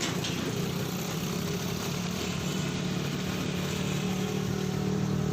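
A machine running steadily with a low, even hum, growing slightly louder in the second half.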